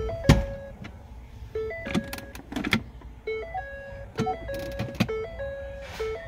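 Background music: a simple jingle-like tune of short held notes that repeats every second and a half or so, with a few sharp clicks mixed in.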